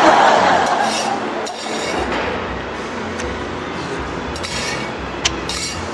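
Metal chopsticks clinking and scraping against the bottom of a stainless steel bowl while picking fish cake out of noodle broth, with sharp separate clinks about once a second after a short noisy burst at the start.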